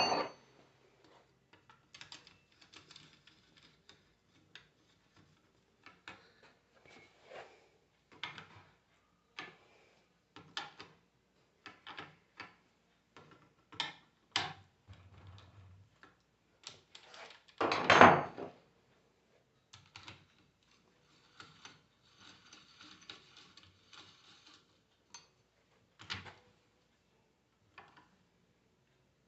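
Scattered clicks and knocks of small metal parts and tools being handled while the rebuilt alternator and its voltage regulator are put back together, with one louder clatter about 18 seconds in.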